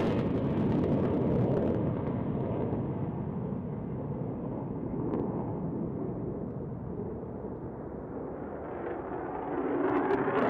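Jet engine noise from an F-35B Lightning II's single F135 turbofan as the jet climbs away after takeoff: a steady roar that fades gradually, then swells louder again near the end.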